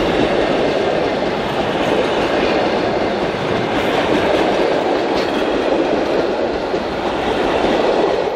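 A train running along the track, a loud, steady rumble of wheels on the rails.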